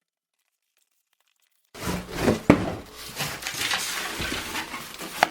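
Silence, then about a second and a half in, packaging being handled: crinkling and tearing noises with small clicks and one sharp knock.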